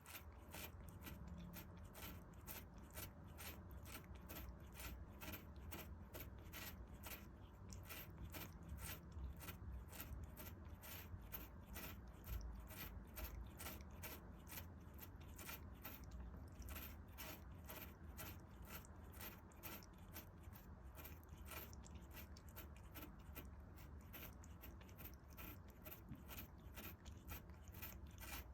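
A cat chewing and crunching a hard treat, a steady run of small crunches at about three a second.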